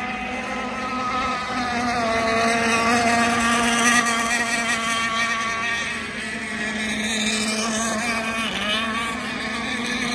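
Radio-controlled racing boat's engine running at speed, a steady drone whose pitch wavers up and down as the boat laps the course, growing louder a couple of seconds in.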